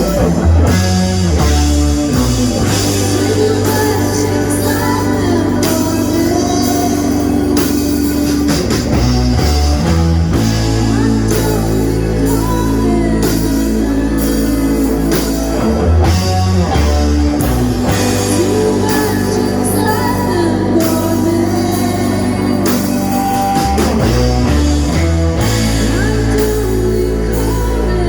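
Rock band playing with a singer: guitar, bass and drums under a sung melody, with a steady beat.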